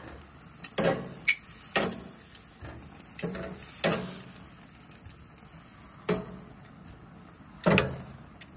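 Food sizzling, with a cooking utensil scraping and knocking about half a dozen times at irregular intervals, the loudest near the end.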